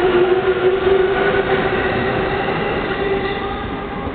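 JR East E233-series Chuo Line electric train pulling out of the station: the traction motors whine in several steady pitches that rise slightly, over rumbling wheel and rail noise. The whine and rumble fade gradually in the last second as the train draws away.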